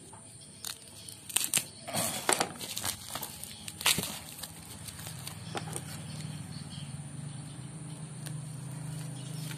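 Plastic parcel wrapping and packing tape being handled, crinkling and crackling in a few short bursts. A low steady hum comes in about halfway through.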